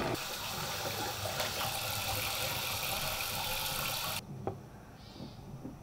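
Bathroom faucet running into a sink basin with a steady hiss, which stops abruptly about four seconds in; a faint click follows.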